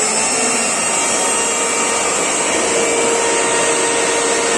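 Mixer grinder (mixie) motor running steadily at full speed with a whine, working again now that its failed overload protector switch has been replaced.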